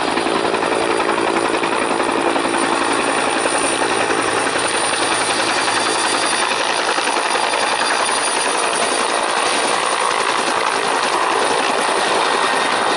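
Helicopter coming in close and low to land on snow: loud, steady rotor and turbine noise with a steady high whine over it.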